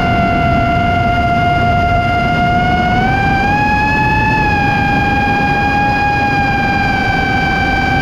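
iFlight Nazgul Evoque F5 5-inch FPV quadcopter's brushless motors and propellers whining in flight, over a rushing noise. The pitch holds steady, rises with more throttle about three seconds in, then eases down slightly.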